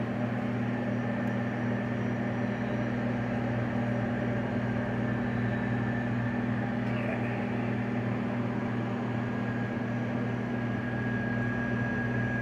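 Steady low machine hum with a faint high whine above it, from an electrical appliance running in the room.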